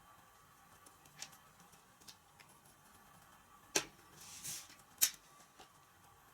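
Small hard clicks and taps from handling plastic and foam model-plane parts during assembly, with two sharper clicks about four and five seconds in and a brief scratchy rustle between them.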